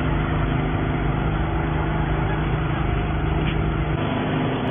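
An engine running steadily with a low, even hum, its tone changing slightly about four seconds in.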